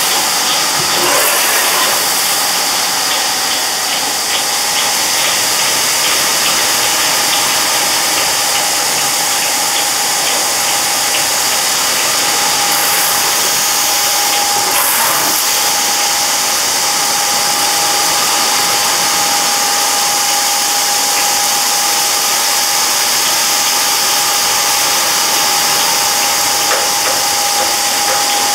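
Large gear-driven konpeito pans turning: a steady rushing hiss of sugar grains tumbling in the tilted rotating pans over the hum of their drive machinery, with a steady whine joining about twelve seconds in.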